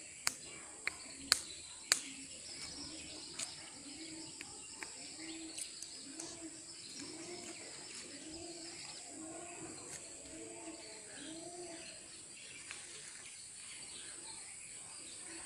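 A bird's low cooing call, repeated about once every two-thirds of a second in a steady series of a dozen or so notes, starting about four seconds in and stopping near the end. A few sharp clicks come in the first two seconds, over a steady high hiss.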